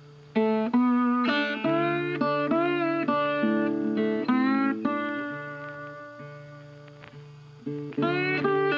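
Jazz background music: a guitar plays a melody of plucked notes, some bent in pitch, over a steady low note.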